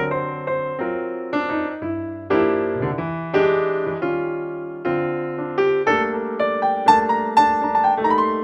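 Background music: an electric piano playing a gentle melody over sustained chords.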